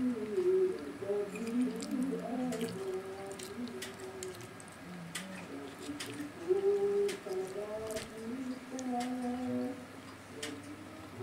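A voice humming a slow tune, holding notes of about a second, with scattered sharp clicks of a metal spoon against a plate.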